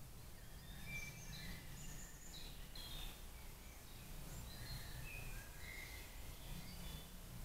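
Faint woodland birdsong: short, high chirps and phrases come and go throughout, over a steady low hum.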